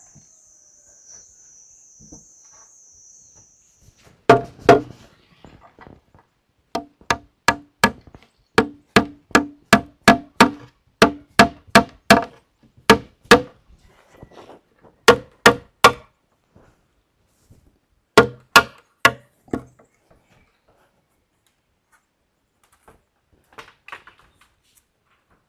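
A hammer striking wood, most likely driving nails: two blows, then a steady run of about two ringing strikes a second for some nine seconds, then three more after a short pause. A high wavering buzz stops about four seconds in.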